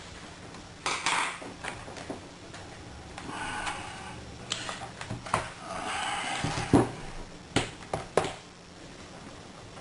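Hands working on a laptop's hard drive bay: scattered clicks and knocks of plastic and small metal parts, with a couple of scraping stretches, the sharpest knock about seven seconds in.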